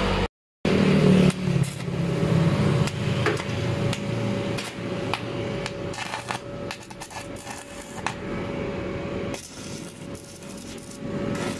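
Stick (arc) welding on the steel side rail of a roll-up shutter: the electrode arc crackles and sizzles with irregular sharp pops over a steady hum. The sound drops out briefly just after the start.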